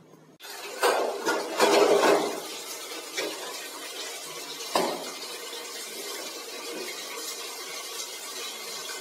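Steel pots, a pressure cooker and a lid being washed by hand in a kitchen sink. There is a spell of loud clattering about half a second in, single clanks about three and five seconds in, and then steady running tap water with light clinks of metal.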